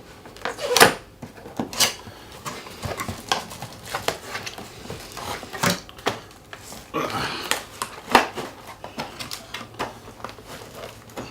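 Cardboard box and packaging being handled while a boxed LED light is worked out of it: scattered knocks and clicks with a stretch of rustling about seven seconds in. The light is stuck in the box.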